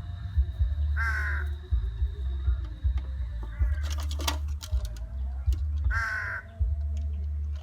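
A crow cawing: two loud, harsh caws about five seconds apart, with a fainter call between them, over a steady low rumble.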